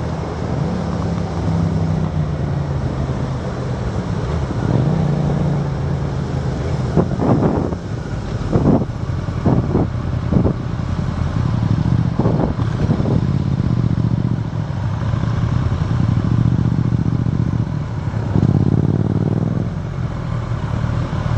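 Motorcycle engine running as the bike slows and rolls along at low speed, with a run of short louder bursts about seven to thirteen seconds in.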